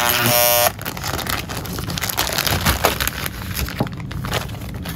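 Clear plastic bag crinkling and rustling as it is handled and opened, with many small crackles. A loud brief buzz in the first half second or so, before the crinkling takes over.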